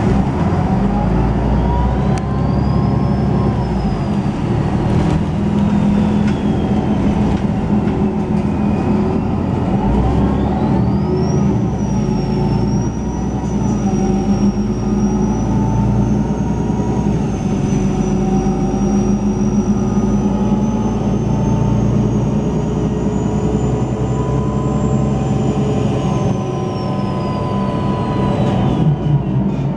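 MAN Lions City G bus's 10.5-litre straight-six diesel (MAN D 2066 LUH) accelerating, heard from on board, with a loud turbocharger whistle. The whistle climbs early on, sinks away, climbs again about ten seconds in to a high pitch that holds and creeps higher, then drops near the end.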